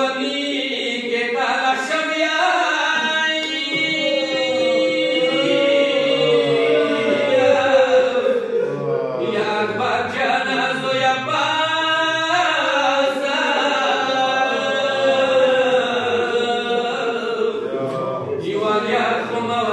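A man chanting a Pashto rubai, a Muharram mourning quatrain, solo and unaccompanied. He draws out long, wavering, ornamented notes, with brief breaks between lines.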